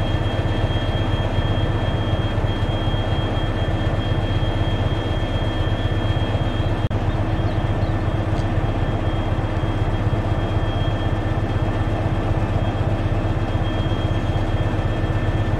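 Diesel locomotive engines idling in a rail yard: a steady low rumble with a faint steady whine over it.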